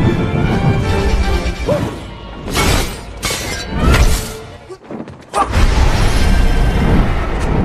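Action-film fight soundtrack: dramatic score music with several sharp smashing, shattering impacts in quick succession near the middle. The sound dips away briefly about five seconds in, then the music comes back loud.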